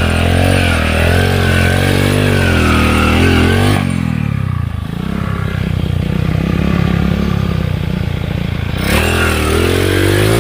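Underbone motorcycle engine being ridden with uneven throttle, its pitch rising and falling. About four seconds in, the revs drop and it runs lower and steadier, then it revs up again near the end.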